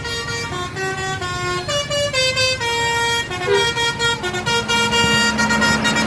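A tour bus's basuri (telolet) horn plays a melody of quick stepped notes, loud and close as the bus draws alongside. A low engine hum joins in near the end.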